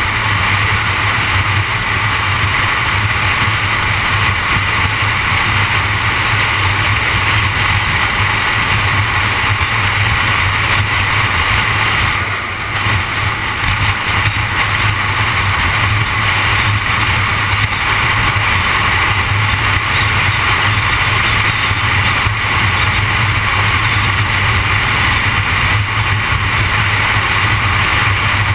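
Steady road noise of a car driving: tyres and engine, briefly quieter about twelve seconds in.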